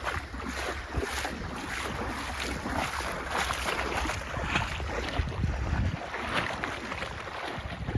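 Wind buffeting the microphone as a steady low rumble, over water sloshing and splashing.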